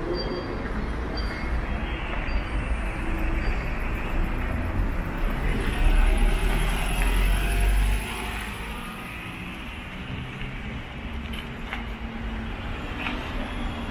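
Heavy truck's diesel engine running as it moves, with general traffic noise. The rumble is loudest for a couple of seconds in the middle, then drops off sharply. A faint, high beep repeats about once a second in the first few seconds.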